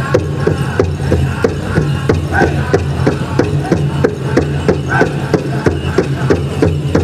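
Powwow big drum struck in a fast, even beat by a drum group, with the singers' voices over it, for a chicken dance song.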